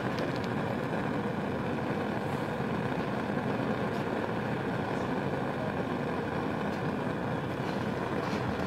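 Steady rushing noise with a faint even hum from the lit Bunsen burner's gas flame and the laboratory's air handling, with a couple of faint ticks from the metal tool.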